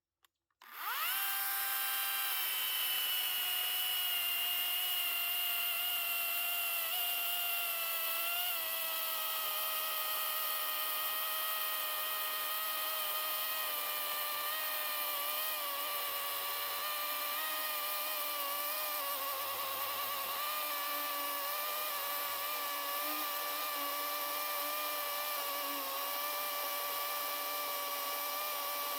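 WEN electric chainsaw's motor switched on about a second in and running with a steady high whine and a chain buzz. Its pitch drops slightly about eight seconds in.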